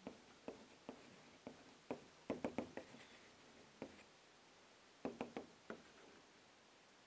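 Chalk writing on a blackboard: faint, scattered short taps and scrapes, with quick runs of strokes about two and a half seconds and five seconds in.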